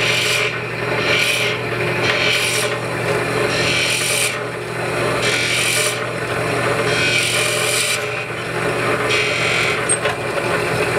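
Foot-pedal horizontal boring machine running with a steady motor hum while its bit bores into the end grain of a clamped wooden workpiece; the high rasping cut comes and goes about seven times as the bit is fed in.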